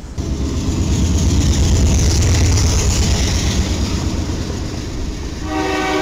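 A freight train running past close by, with a heavy low rumble and rail-and-wheel noise. About half a second before the end, a locomotive air horn starts sounding a steady chord of several notes.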